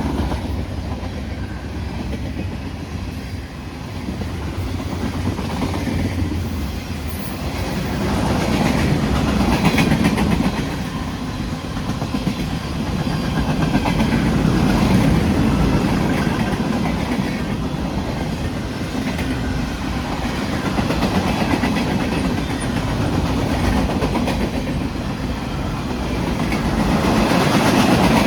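Union Pacific freight train rolling past, its steel wheels clicking over the rail joints in a dense, steady rumble that swells and fades a few times.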